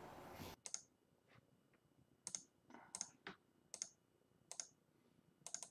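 Faint, scattered clicks of computer keys, about a dozen single clicks spaced unevenly apart. A steady hiss cuts off about half a second in.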